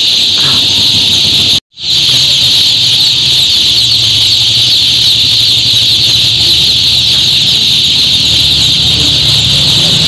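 Hundreds of male day-old chicks peeping all at once inside stacked cardboard chick boxes, a dense, continuous high chatter. A vehicle engine idles low underneath. The sound cuts out for an instant just under two seconds in.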